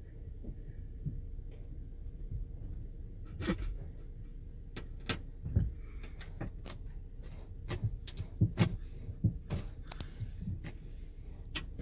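A bison rubbing its head and horns against a car's windshield and body, heard from inside the car: irregular thumps and knocks on the bodywork starting about three and a half seconds in, coming most often near the end.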